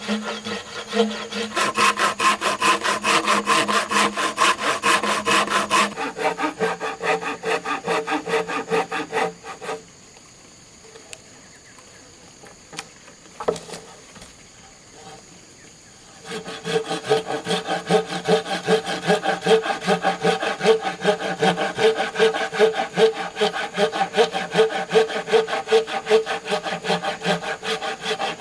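Bamboo being sawn by hand in quick, even back-and-forth strokes. The sawing stops for several seconds partway through, with a single click during the pause, then starts again.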